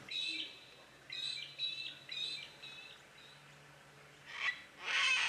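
Sulphur-crested cockatoos calling: a run of about five short calls in the first three seconds, then two louder, harsher screeches near the end.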